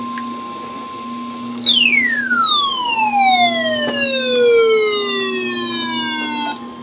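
A loud whistle-like tone with strong overtones slides steadily down in pitch from very high to low over about five seconds, then cuts off suddenly. Under it runs a faint steady weather-radio alert tone of about 1050 Hz, the tone that comes just before a NOAA Weather Radio voice message.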